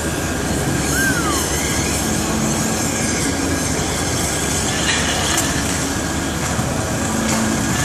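An oxygen lance burning a hole through a steel shaft, making a steady rushing hiss. A brief falling squeal sounds about a second in.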